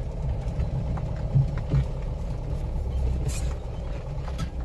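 Vehicle engine and tyre noise heard from inside the cab, a steady low rumble, with a few short knocks and rattles as it rolls over a muddy, potholed dirt track.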